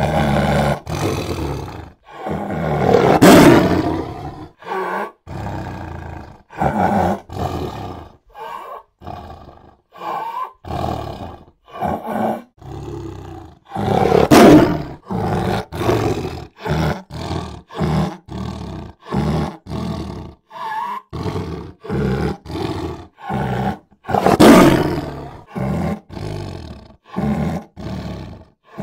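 Big cats roaring and growling: a steady run of short growls and snarls, broken by three long, loud roars about 3, 14 and 24 seconds in.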